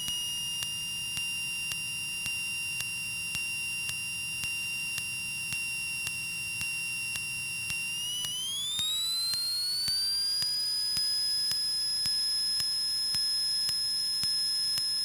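A steady high electrical whine on the Cessna 152's cockpit intercom audio. It follows engine speed, typical of alternator noise. About eight seconds in it glides up in pitch and then holds higher, as the engine goes to full power for the takeoff roll.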